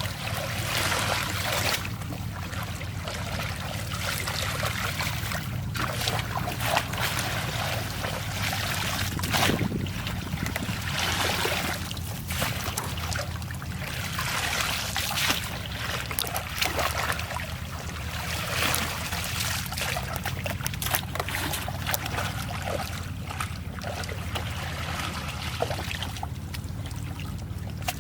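Water splashing and trickling in irregular bursts over a steady low hum.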